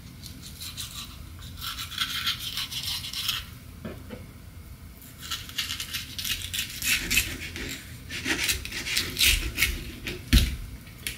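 Kitchen knife scraping and cutting through a fish on a cutting board, a run of quick rasping strokes in two stretches. A dull knock comes near the end.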